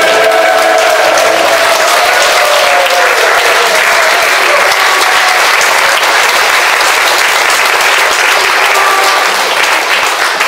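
A choir's last held chord dies away over the first couple of seconds, and an audience applauds steadily, easing off near the end.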